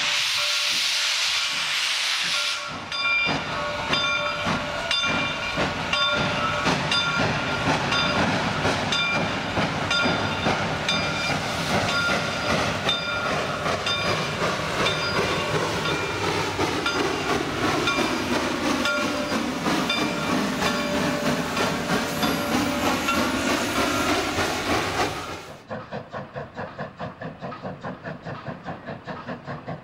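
Steam locomotive: a hiss of escaping steam, then exhaust chuffing in a steady rhythm, with a bright ringing tone repeated about once a second. At about 25 seconds the sound drops abruptly to a quieter, duller run of fast, regular beats.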